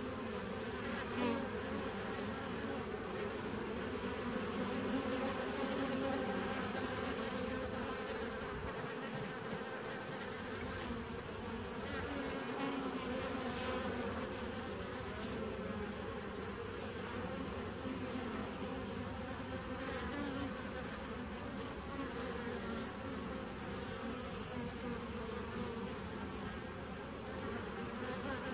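Honeybees buzzing at a nuc hive's entrance: a steady, continuous hum of many bees flying in and out, its pitch wavering slightly as individual bees pass close.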